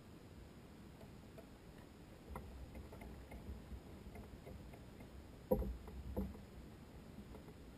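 Faint scattered ticks, then two louder knocks about five and a half and six seconds in as a kayak paddle is handled and bumps against the plastic kayak hull.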